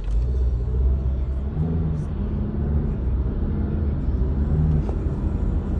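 Steady low road rumble and engine hum of a moving car, heard from inside the cabin.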